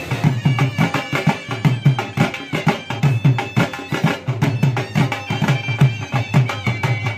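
Traditional folk music: a steady drum beat under a sustained, reedy wind-instrument melody.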